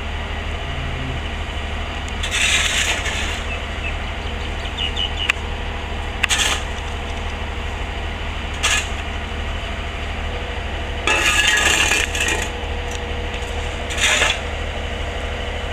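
Steel tie-down chains clinking and jingling in about five short bursts over the steady low hum of an idling truck engine; the longest burst comes a little past the middle.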